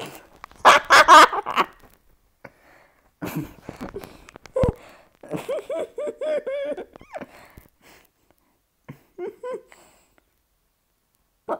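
Bursts of laughter, including a quick run of pitched 'ha-ha' sounds around the middle, with a short thump a little before that.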